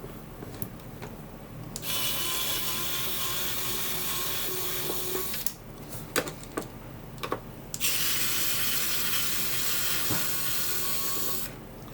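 Small electric screwdriver running in two steady runs of about three and a half seconds each, backing out the screws on the back of a computer case, with a few small clicks between the runs.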